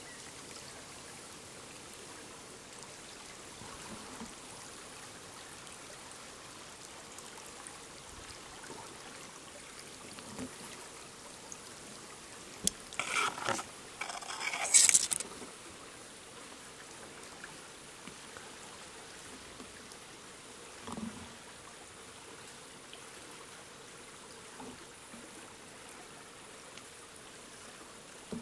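Faint steady trickle of a small, shallow woodland stream. About halfway through there is a louder spell of rustling and crackling from leaves and twigs, lasting about three seconds.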